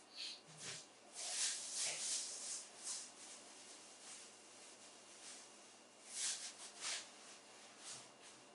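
Faint intermittent rustling and scratching, in short clusters about a second in and again about six seconds in.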